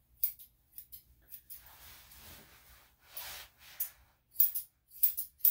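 Grooming shears snipping a dog's head fur in short, sharp, irregular cuts, several coming in quick pairs, with a soft rustle between the cuts.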